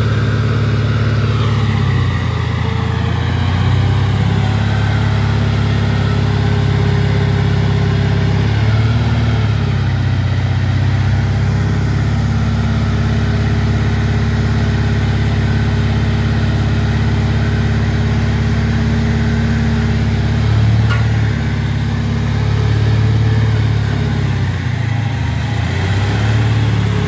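The engine of a homemade hydraulic mini crane runs steadily as the boom is lowered for stowing. Its note shifts several times as the hydraulics take and release load.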